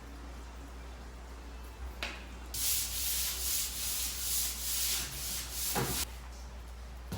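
A stiff brush scrubbing or sweeping a surface in repeated strokes for about three and a half seconds, with a rough, hissing rub. A light knock comes just before it starts.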